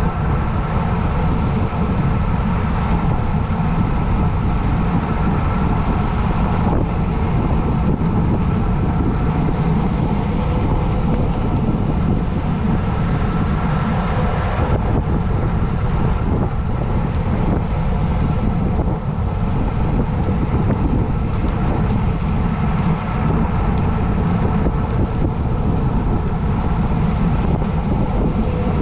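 Wind rushing over the microphone and tyre noise from a bicycle descending a mountain road at speed: a loud, steady rush that holds unbroken throughout.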